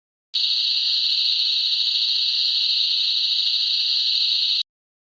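A steady, even hiss lasting about four seconds, starting and cutting off abruptly.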